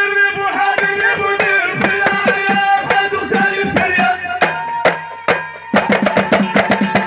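Houara folk music: several small hand drums beaten in a fast, dense rhythm under a man's voice singing long held notes through a microphone and loudspeakers. About four and a half seconds in, the drumming thins out for a moment, then comes back denser.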